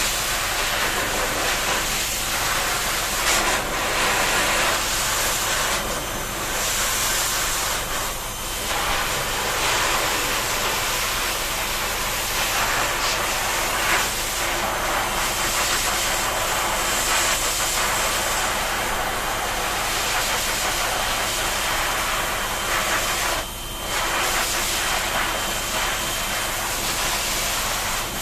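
Water spraying steadily from a shower head, a continuous hiss with a few brief dips where the spray is interrupted.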